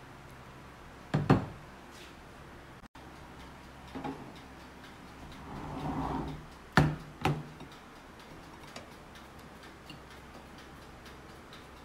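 Kitchenware handled on a table: a few sharp knocks and clatters, the loudest a pair close together about seven seconds in, with a brief rustle just before. A faint, steady ticking runs underneath in the second half.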